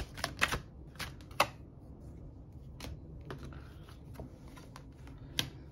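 Tarot cards being shuffled by hand: a quick run of card flicks in the first half-second, then scattered single clicks and taps as cards are handled and one is drawn and laid down.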